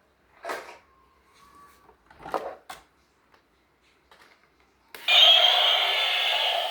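A few short clicks and rustles from plastic being handled, then about five seconds in a loud steady electronic sound effect from a battery toy vehicle starts.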